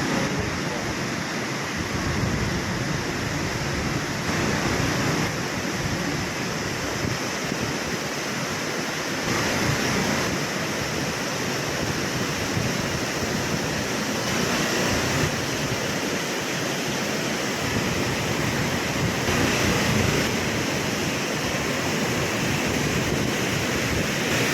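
Dhuandhar Falls, the Narmada River pouring over marble rocks: a steady, loud rush of falling water.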